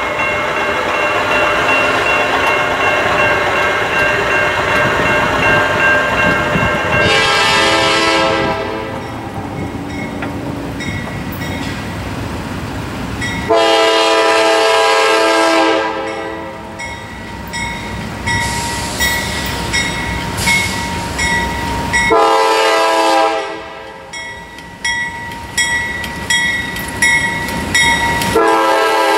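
Norfolk Southern diesel freight locomotive sounding its multi-note air horn as it approaches and passes: one long blast, then several more blasts with short gaps between them. Between the blasts the train runs close by.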